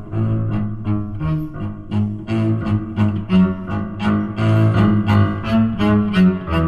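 Background music for a silent film: low bowed strings, cello and double bass, playing a brisk run of short, detached notes at about three a second.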